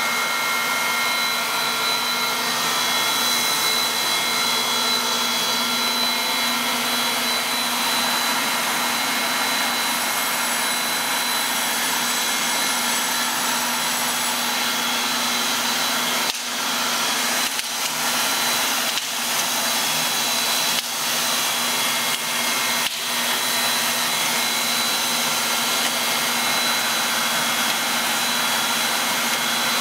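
Two-stage recycling machine running: a steady machine whir with several steady tones through it. A handful of brief dips in level come in the second half.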